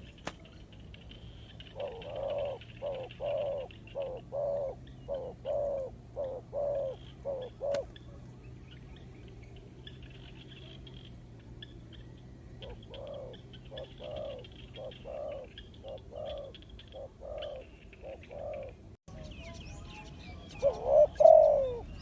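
Spotted doves cooing: a quick run of a dozen or so short, low coos, a second run after a pause, then one louder coo near the end. Faint, higher chirping of small birds sits beneath.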